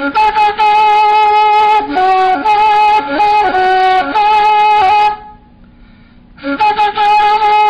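Ney, the end-blown reed flute, playing a slow melody of held notes with bends between them. The phrase breaks off about five seconds in for a breath, and the next phrase starts about a second and a half later.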